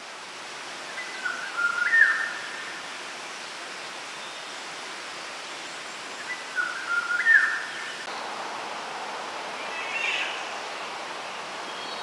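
A wild bird singing the same short phrase of notes twice, about five seconds apart, with a higher, different call a few seconds later. Underneath is a steady rushing background noise.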